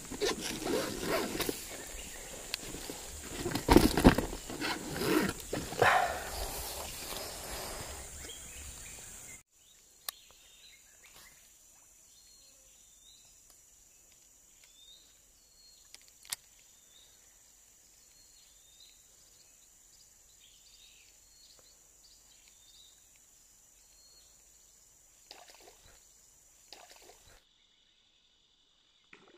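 Rustling, scraping and knocking as a caught snakehead fish is held and handled over dry leaf litter, loudest around four and six seconds in. After about nine seconds it cuts to near quiet with faint high chirps and a few soft clicks.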